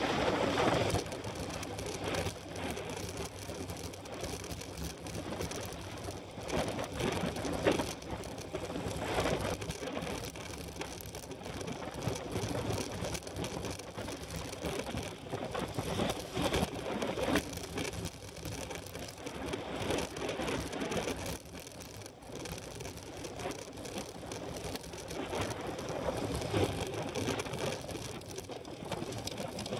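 Rapid, irregular mechanical ticking and clicking over a steady noisy background.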